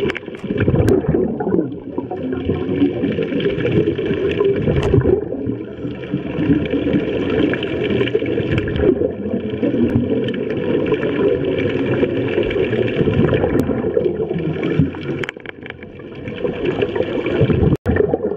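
Underwater rumble with continuous, irregular gurgling from scuba divers' exhaled regulator bubbles.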